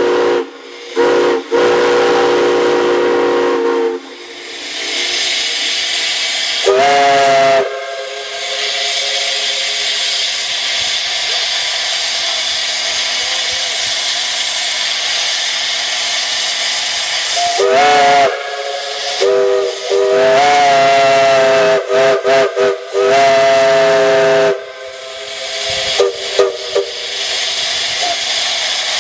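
Steam locomotive whistles blown in a series of blasts, each sounding several tones at once: short toots and a held chord at the start, a blast about seven seconds in that slides up onto its pitch, then from about eighteen seconds a run of long and short blasts. Between the blasts, a steady hiss of escaping steam.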